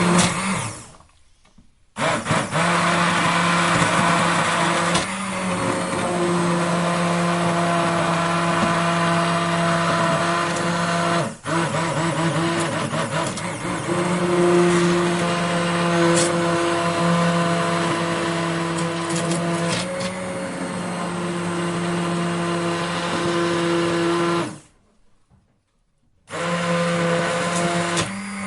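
Electric blender motor running with a steady whirring hum. It is switched off shortly after the start and back on about two seconds in, falters for an instant near the middle, and is stopped for about a second and a half near the end before running again.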